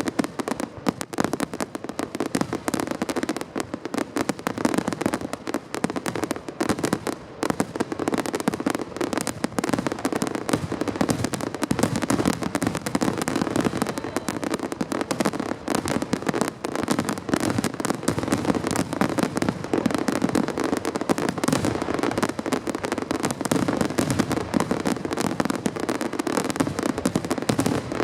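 Fireworks finale: a dense, continuous barrage of shell bursts, bangs and crackling with no let-up.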